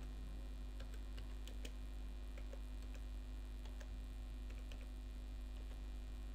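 Computer keyboard keys being typed slowly, a few scattered light clicks, over a steady electrical mains hum.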